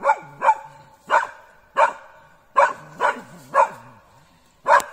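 Polish Hunting Spaniel barking loudly and repeatedly, about eight sharp barks at an uneven pace, baying at a wild boar dummy.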